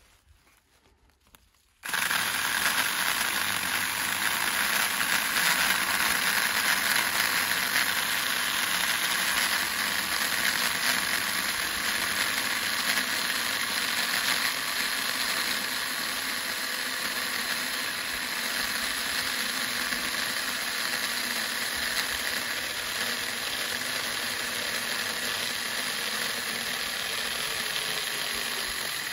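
Battery-powered mini chainsaw running steadily as it cuts through a fallen log, a steady whir with a chain hiss, starting abruptly about two seconds in.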